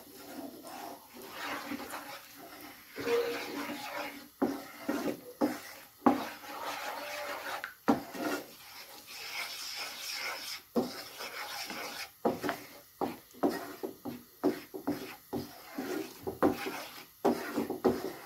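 Wooden spoon stirring and scraping flour roasting in ghee around a steel frying pan, with irregular knocks of the spoon against the pan.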